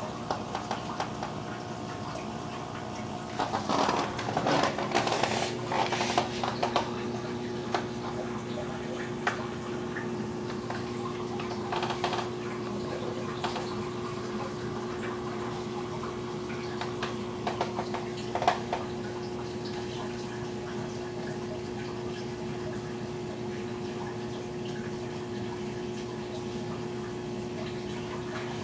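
Saltwater aquarium's water pump and filter running: a steady hum under constant trickling, bubbling water. A patch of louder crackles comes about four to six seconds in, with short ones again around twelve and eighteen seconds.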